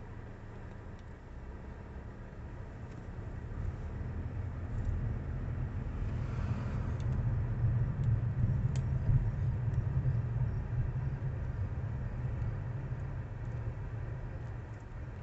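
Low rumble of a motor vehicle, swelling to a peak about halfway through and then fading, as a car passing close by would.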